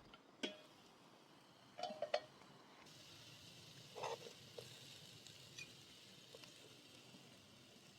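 A few light clinks of dishes and utensils, a close pair about two seconds in and another near four seconds, over a faint steady hiss from about three seconds in.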